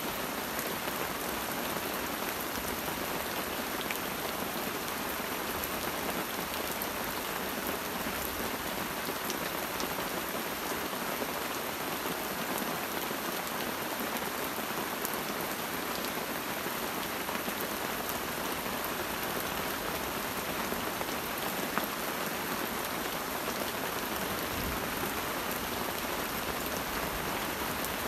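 Steady rain falling on a forest, an even hiss with a few single drops ticking louder now and then.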